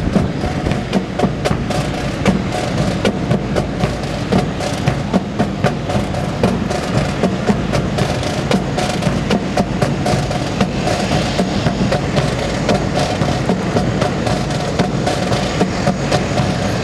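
Rifle drill squad marching on concrete: many rapid, irregular sharp clacks of rifles handled in unison and boots striking the pavement, over a steady mechanical hum.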